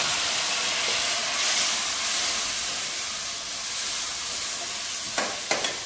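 Ginger-garlic and spice masala frying in hot ghee, sizzling loudly with steam after water has been poured into the pan to keep it from burning. The hiss eases off slowly.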